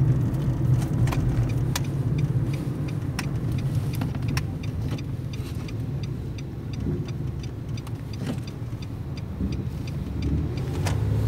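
Car engine and road noise heard from inside the cabin as the car makes a slow U-turn: a steady low hum, with scattered light clicks.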